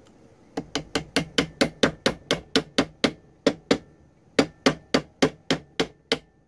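A small hammer tapping a retaining pin into the receiver of a CZ Scorpion Evo carbine: about twenty quick taps, roughly four a second, with a short pause a little past the middle. The taps drive the pin in until it sits flush.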